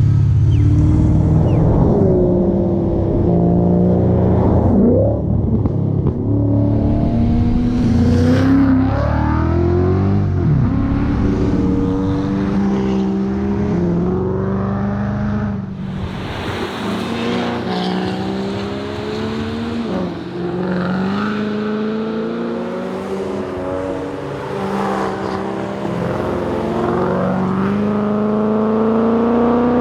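Ford Mustang's engine driven hard, its revs climbing and then dropping sharply again and again as it changes gear and slows.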